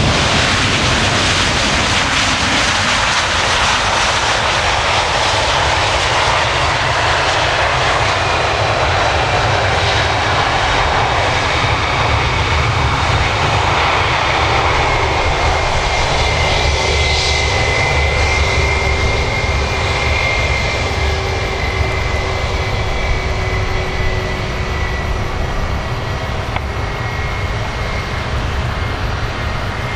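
Airbus A320-200 twin jet engines running at low power as the airliner rolls slowly past on the ground. It is a steady rumble and hiss with a thin whine that slowly falls in pitch, easing off slightly near the end.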